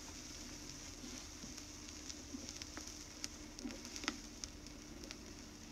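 Turntable stylus riding the groove of a 45 rpm vinyl single after the song has ended: faint steady surface hiss with scattered crackles and pops, and a faint steady hum underneath.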